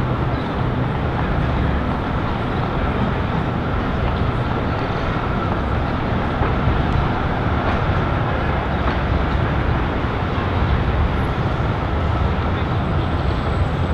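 Steady city traffic noise from trams and cars moving along a busy road, an even rumble and hiss with a faint high whine running through it.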